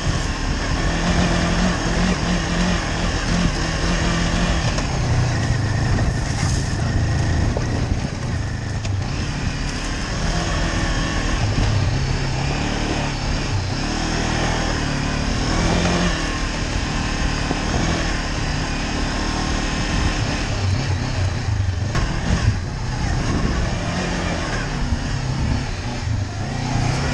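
Honda CB500X's parallel-twin engine running at low speed along a gravel trail, its pitch shifting up and down with the throttle, under a steady rushing noise.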